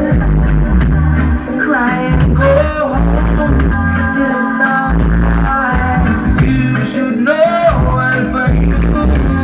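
A song with a singing voice over strong bass, played loud through a sound system's speaker rig.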